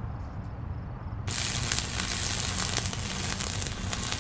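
Sizzling, crackling hiss sound effect for an animated logo intro, starting suddenly about a second in over a low steady hum.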